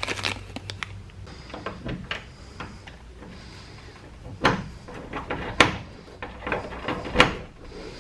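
Scattered clicks and knocks of small door hardware, washers and screws, being handled and fitted against a plastic shed door, with three sharper knocks about a second apart in the second half.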